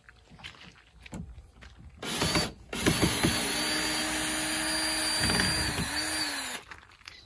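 Cordless drill backing a screw out of the camper's rail. The motor gives a short burst about two seconds in, then runs with a steady whine for nearly four seconds before winding down.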